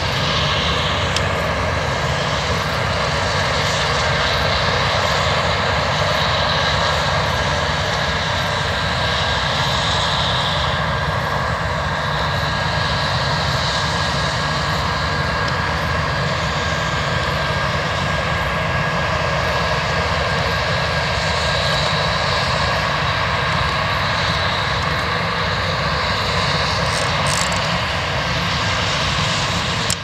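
Claas Lexion 780 combine harvester running while harvesting barley: a steady engine and threshing drone with a constant high whine over it.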